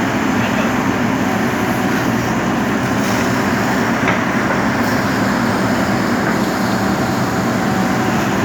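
JCB backhoe loader's diesel engine running steadily at working revs.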